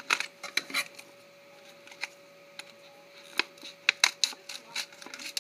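Scissors snipping into a stiff plastic razor blister pack, with sharp crackles of the plastic as it is handled. A few crackles come in the first second, and a quick run of snips and crackles starts about three and a half seconds in.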